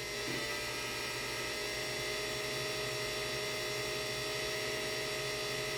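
3D-printed axial-flux brushless DC motor running steadily on an Arduino speed controller: an even electric hum and whine made of several fixed tones.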